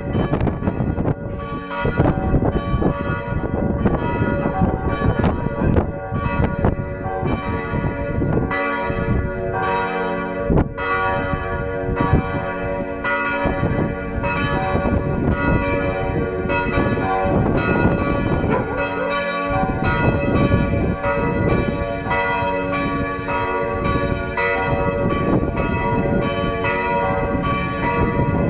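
Several church bells ringing together in a full peal, their strikes overlapping continuously with long, lingering tones.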